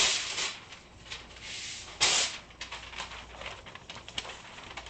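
Butcher paper rustling and crinkling as a sheet is pulled out and handled, with two louder swishes, one at the start and one about two seconds in, and small crackles between.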